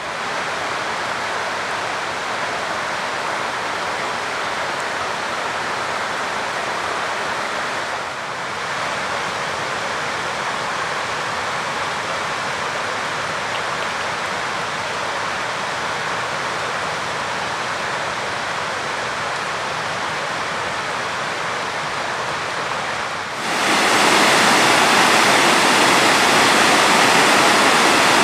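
Rushing water of a mountain stream's rapids and cascades, a steady even rush. About 23 seconds in it jumps louder and brighter, as at heavier falling water.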